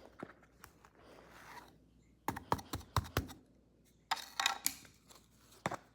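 Kinetic sand being handled: soft rubbing, then two clusters of crisp crunching clicks, about two and four seconds in, and a single crunch near the end.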